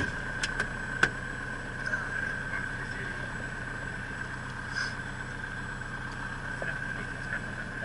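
Socata Rallye MS.892A Commodore 150's four-cylinder Lycoming engine running steadily at low power, heard inside the closed cockpit, with a constant high tone over it. A few sharp clicks in the first second or so as the canopy latch is worked.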